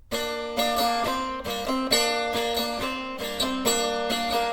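Music: a plucked string instrument playing a melody of short notes, one after another.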